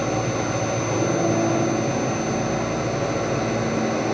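Haas VF3 vertical machining center running steadily, a constant machine whir with a thin high whine over it.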